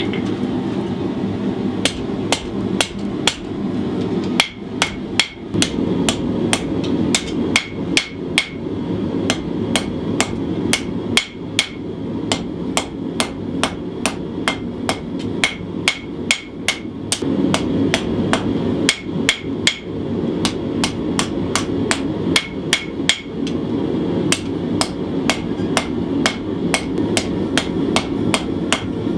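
Hand hammer forging hot 1095 carbon steel on an anvil, drawing out a knife blade's point: a steady run of blows, about two to three a second, each with a bright metallic ring. A steady low rumble runs underneath.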